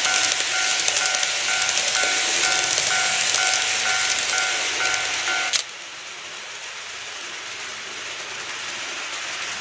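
Model level crossing's warning bell chiming about three times a second over the running hiss of a KATO 211 series N-gauge train passing on the track. The bell and most of the running noise cut off at a click about five and a half seconds in as the crossing clears, leaving a softer hiss.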